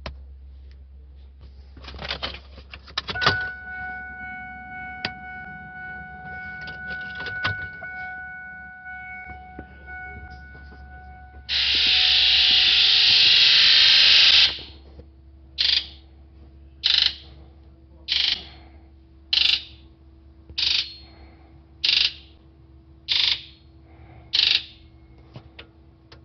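Injector buzz test on a 1999 Ford 7.3 Power Stroke diesel: the scan tool pulses the solenoids so the ball and seat valves inside the fuel injectors chatter. All injectors first buzz together for about three seconds, then eight short buzzes follow about a second and a quarter apart, one per injector. No code is set, so the injector electrical circuits are working. Before the buzzing there are faint clicks and a faint steady whine.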